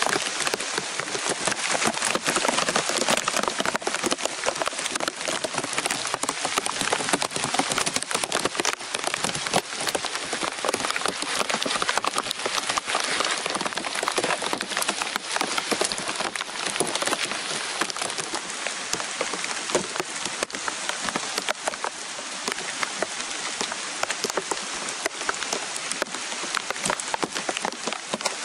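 Heavy rain falling steadily, a dense hiss full of sharp, close raindrop taps.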